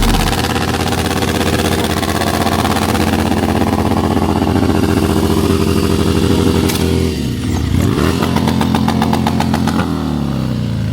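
Motorcycle engine running at steady throttle. About seven seconds in the revs drop and climb again, with a rapid, even pulsing, and the engine winds down near the end.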